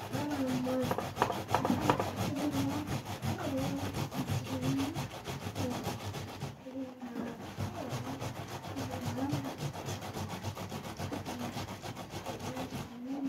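Tomatoes being grated on a metal box grater, a steady run of quick scraping strokes.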